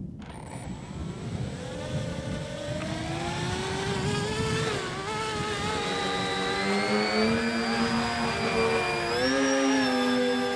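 Propellers and motors of a radio-controlled Canadair CL-84 Dynavert tilt-wing model spooling up, their whine rising in pitch over several seconds. A second, lower tone joins partway through, and wind buffets the microphone underneath.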